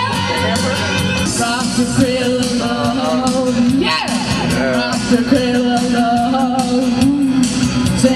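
Live amateur rock band playing, with drums and a woman singing into a microphone in long held notes that slide in pitch about four seconds in.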